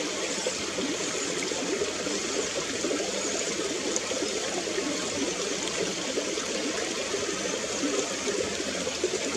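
Steady running water, babbling evenly throughout.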